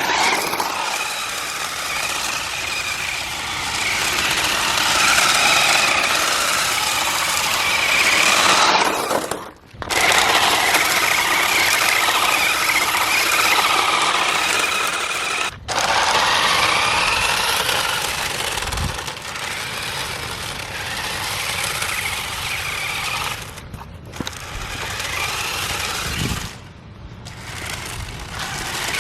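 Toy remote-control drift car (Jada Toys Mazda RX-7) driving, its small electric motor whining and rising and falling with the throttle over tyre noise. It cuts out sharply a few times: about ten seconds in, briefly at about sixteen seconds, and again near the end.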